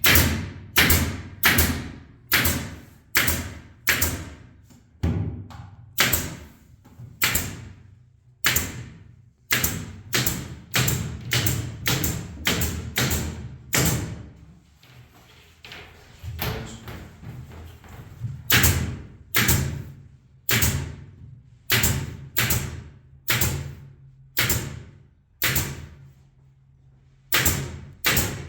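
Repeated heavy thuds, one to two blows a second in runs broken by short pauses, each with a short ring after it.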